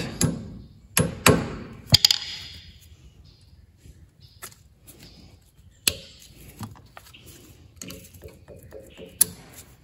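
Ball-peen hammer striking metal at the tractor's front spindle end three times in the first two seconds, the last blow ringing briefly, to drive out a broken cotter pin. Then light metallic clicks and scrapes as a pick and pliers work at the pin.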